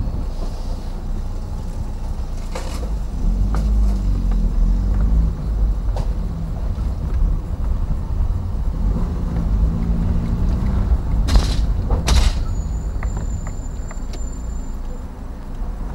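A Fiat Uno driving, heard from inside the cabin: low road and body rumble under an engine note that rises and falls twice as the car pulls along, with a few sharp knocks, the strongest two around eleven and twelve seconds in. The sound is muffled by cloth tape over the microphone.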